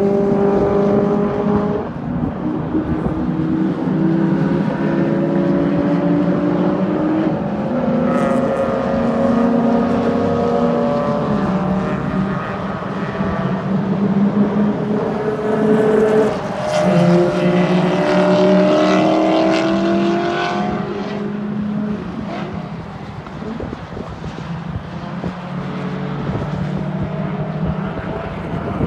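Race car engines at high revs lapping the circuit, more than one at once. Their notes climb through each gear and drop at every upshift. The sound is loudest about two-thirds of the way in, then fades as they move away.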